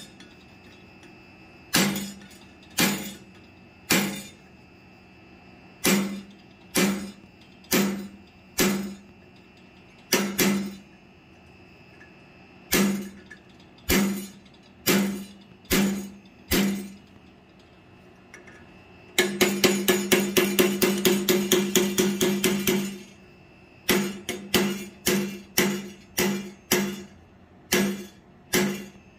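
Hammer blows on a ball punch, driving a deep groove into hot steel on the anvil. Single ringing strikes come roughly a second apart, with a quick run of about four blows a second lasting some four seconds about two-thirds of the way through.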